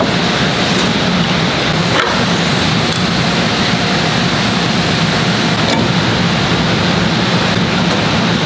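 Hydraulic silicone compression-moulding press running, with a steady hum and hiss from its pump. A thin high whine comes in during the middle as the press opens, with a couple of sharp clicks.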